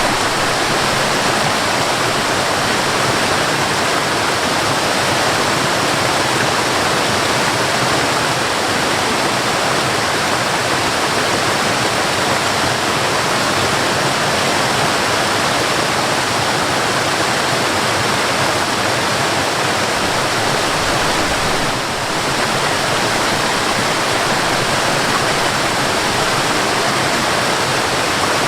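Mountain waterfall: water falling and splashing in a steady, even rush, dipping briefly about three quarters of the way through.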